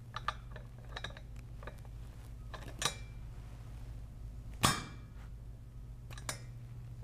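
Pneumatic ram of a grease impact test rig striking a steel anvil once with a loud metallic clang about four and a half seconds in, squeezing the grease sample out from between ram and anvil in a pound-out test. Light metal clicks and knocks come before it as the shielded anvil is set in place, with another click near the end, over a steady low hum.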